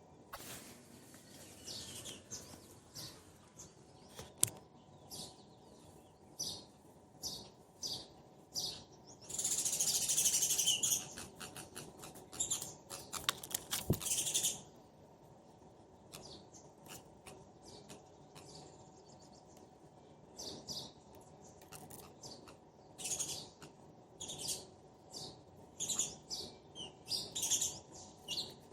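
Sparrows chirping back and forth in short, high, repeated chirps, breaking into dense rapid chattering about a third of the way in and again around the middle.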